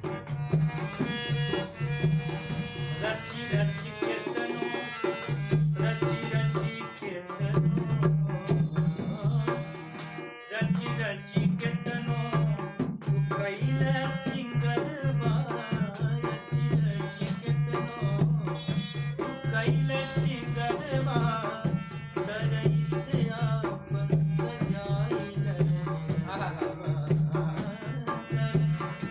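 Live Bhojpuri song: a harmonium plays with a brisk dholak rhythm, and a man sings over it at times.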